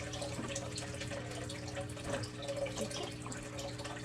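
Water trickling and splashing steadily into an aquarium, over a low steady hum.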